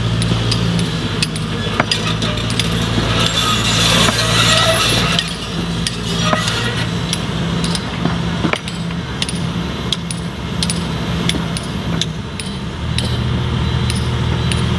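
Sumitomo SH210 excavator's diesel engine running steadily, its low hum easing about five seconds in and picking up again near the end. Frequent sharp clicks and a rushing hiss around the middle sound over it.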